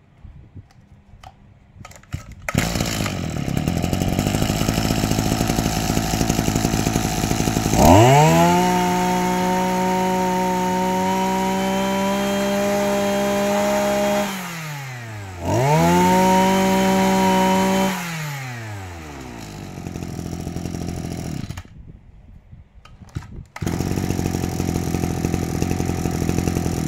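Maruyama MB2630 brush cutter's 26cc two-stroke engine starting about two seconds in and idling. It is revved twice to full throttle with a rising whine, the first time held for about six seconds and the second for about two and a half, and falls back to idle each time. Near the end it goes quiet for about two seconds, then runs again at idle.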